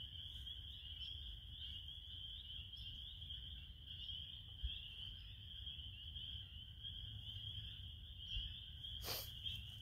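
Steady, high-pitched chorus of calling frogs, spring peepers, over a low rumble, with a single sharp click about nine seconds in.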